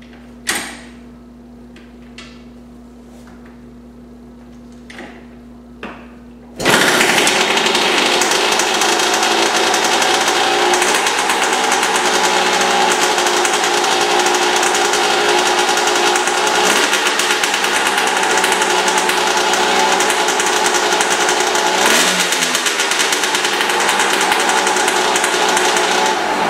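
2000 Kawasaki KX125 two-stroke single-cylinder dirt bike being kick-started: a few sharp kicks in the first six seconds, then the engine catches and runs loudly, the revs rising and falling now and then.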